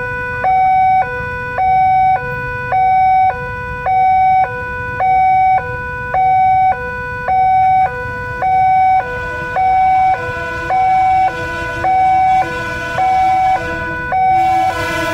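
Indonesian railway level-crossing warning alarm sounding: a loud electronic two-tone signal alternating steadily between a high and a low note, about one high-low pair a second, warning that a train is approaching.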